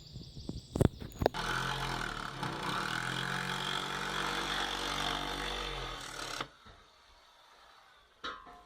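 Power tool cutting into the timber wall board: a couple of knocks, then the motor runs steadily under load for about five seconds and stops abruptly.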